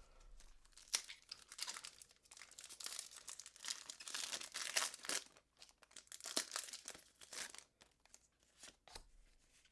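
Foil Pokémon booster pack wrapper being torn open and crinkled: a run of irregular crackles and rips, busiest in the middle and thinning out near the end.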